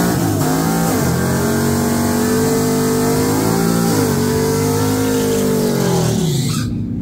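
Naturally aspirated Ram pickup doing a burnout: the engine is held at high revs with brief dips while the rear tires spin and hiss, and the revs fall away near the end.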